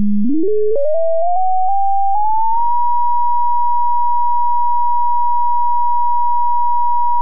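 Computer-generated sine test tone from the PhET Sound simulation's speaker. It starts at about 205 Hz, steps upward as the frequency slider is dragged, and settles at 960 Hz within the first three seconds, then holds steady as a single clean high tone.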